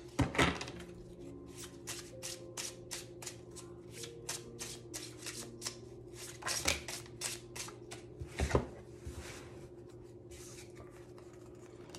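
A deck of tarot cards shuffled by hand: a quick, even run of card slaps, about four a second, with a few louder knocks of the deck along the way.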